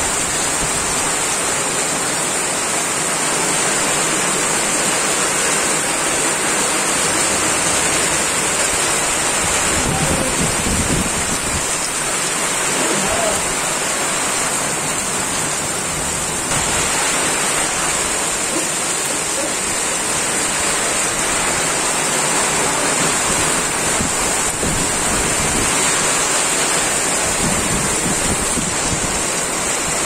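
Heavy Kalbaishakhi (nor'wester) downpour pouring steadily onto a road, an even, unbroken hiss of rain.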